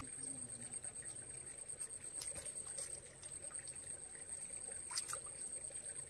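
Faint trickling water, with a thin, steady high-pitched whine over it and a few soft clicks about two and five seconds in.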